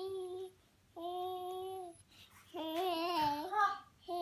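A toddler babbling in drawn-out sing-song notes: a note trailing off at the start, then about two held vowel-like notes of around a second each, the later one wavering in pitch, and another beginning at the very end.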